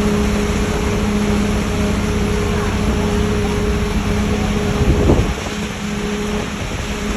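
Engine-driven concrete-pouring machinery running steadily with a constant hum, with a brief louder burst about five seconds in.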